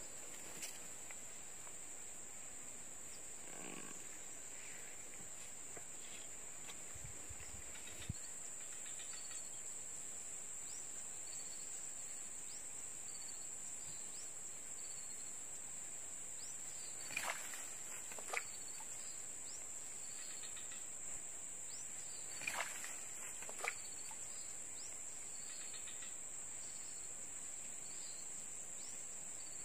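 Insects droning steadily at a single high pitch, with a few sharp clicks or knocks in pairs about halfway through and again later.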